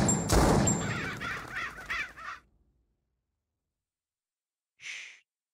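A last pistol shot, fired about a third of a second in, dies away over about two seconds. Then silence, and near the end one short, harsh rasp.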